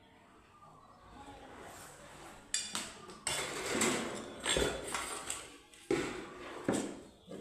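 Hard objects knocking and clattering: four sharp knocks, each with a short ringing tail, over a faint background.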